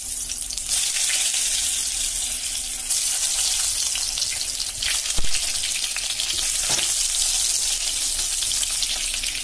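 Brinjal (eggplant) slices sizzling as they fry in hot mustard oil in a wok, a steady high crackling hiss. Two light knocks come a little past the middle.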